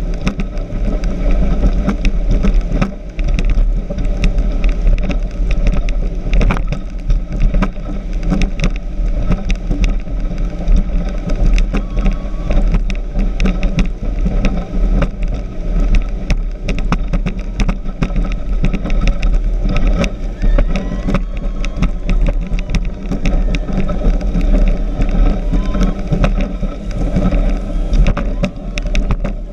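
Speedboat running at speed: a loud, constant rumble and rush with many short knocks and slaps throughout.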